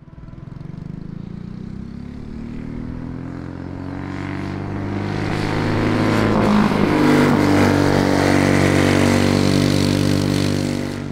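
Single-cylinder Tillotson 212cc kart engine with Stage 1 kit, racing muffler and governor removed, running hard at high revs as a dirt kart laps the track. It grows louder as the kart comes closer, and its pitch drops as the kart goes past.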